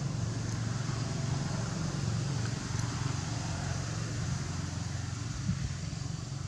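A steady low rumble of motor vehicle engine noise.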